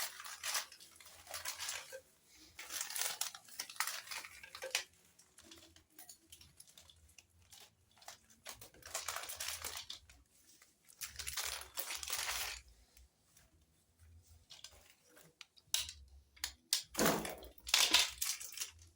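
Bags and packaging rustling and crinkling in several short bursts as household items are picked up and moved, with quiet pauses between; the loudest burst comes near the end.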